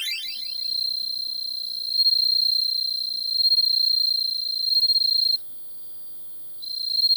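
Cricket song: a continuous high-pitched trill that stops for about a second after five seconds, then starts again.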